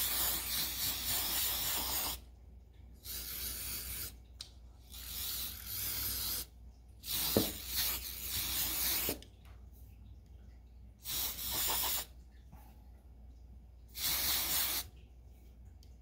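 Aerosol spray can hissing in about six short bursts of one to three seconds each, with brief pauses between sprays.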